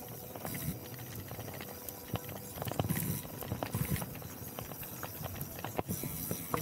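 Specialized Turbo Levo Gen 3 electric mountain bike rattling over a bumpy dirt singletrack: irregular clattering knocks over a rumble of tyre and ride noise, busiest and loudest around three to four seconds in.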